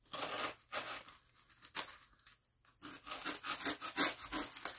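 Clear plastic wrapping and tape being torn and crinkled by hand as a parcel is unwrapped, in irregular bursts with short pauses.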